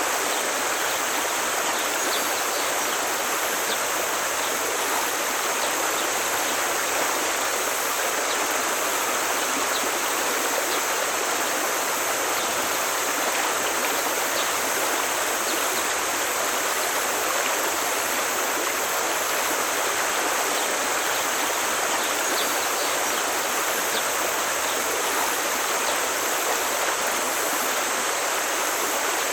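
Forest stream flowing steadily, an even rushing of water.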